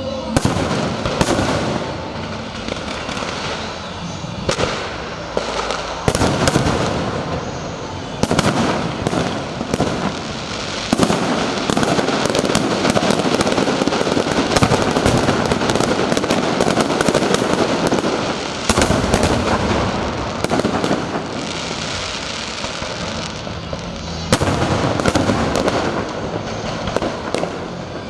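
Aerial fireworks display: a dense, continuous barrage of shells bursting in quick succession, many sharp bangs over a constant crackle. The barrage is heaviest from about eleven to nineteen seconds in.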